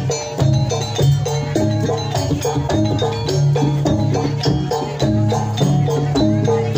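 Javanese jaranan gamelan music: struck metallophones playing a quick repeating melody over steady low gong tones, with jingling percussion.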